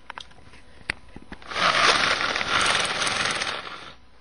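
Loud rushing noise close against the camcorder's microphone, lasting about two and a half seconds after a few light clicks.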